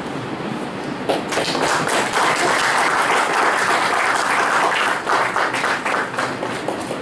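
Audience applauding. The clapping starts about a second in and dies away near the end.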